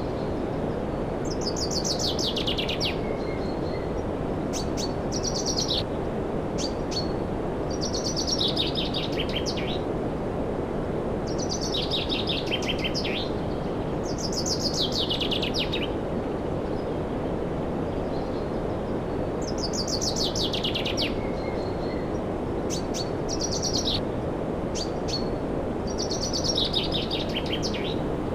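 Bestway air conditioner running with a steady whir. Over it, a bird repeatedly sings a short trilled phrase that falls in pitch, every few seconds.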